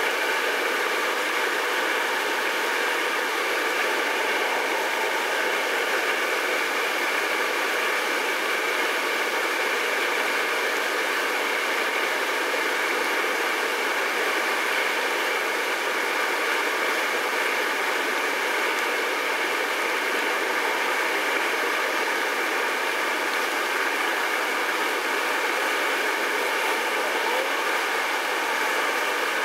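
White-water river rapids rushing steadily, an even hiss-like wash with little low rumble.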